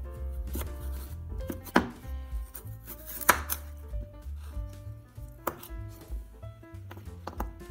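Kitchen knife slicing through a raw carrot and knocking on a bamboo cutting board: several sharp knocks at uneven intervals, the loudest about three seconds in.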